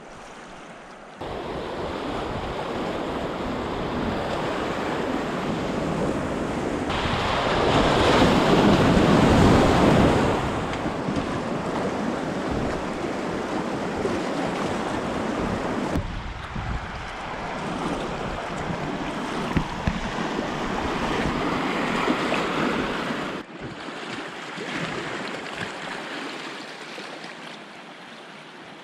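River water rushing and splashing past an inflatable pontoon raft running choppy riffles, with wind buffeting the microphone. It swells loudest for a few seconds about eight seconds in and changes level abruptly several times.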